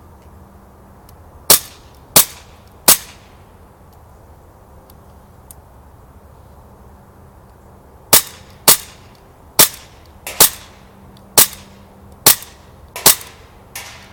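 CO2-powered blowback BB pistol, a Cybergun replica of the SIG Sauer P226, firing: three sharp shots in quick succession, a pause of about five seconds, then a string of about seven more at roughly one a second.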